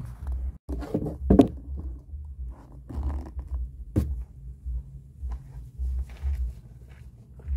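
Close handling noise from a handheld camera being moved about: rustling and scraping over a low, uneven rumble, with a loud knock about a second and a half in and a sharp click about four seconds in.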